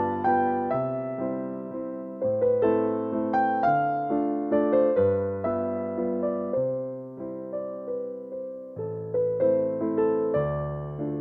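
Background music: a gentle piano (electric piano) piece playing slow chords and melody notes that strike and fade.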